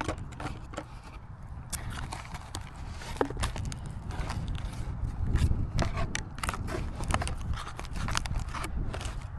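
Irregular taps, clicks and short scrapes of hands working on a cardboard model plane, over a steady low rumble.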